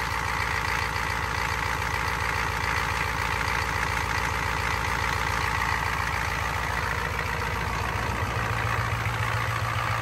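Ford F-250's 7.3 IDI V8 diesel idling steadily, running cold just after being started on ether because its glow plugs are not working.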